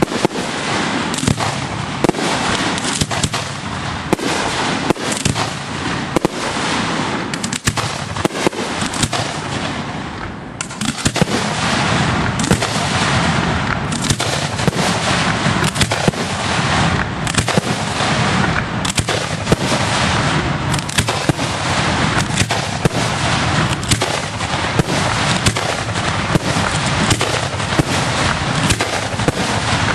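Fireworks display fired from ground racks of mortar tubes: a rapid, near-continuous barrage of launches and bangs, easing briefly a little after ten seconds in before picking up again.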